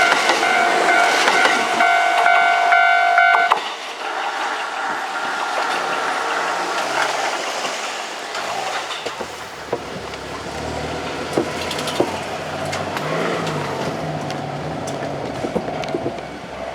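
Japanese level-crossing warning bell ringing, then cutting off abruptly about three and a half seconds in once the trains have cleared. Road traffic follows, with a vehicle engine running from about nine seconds in and a few sharp knocks.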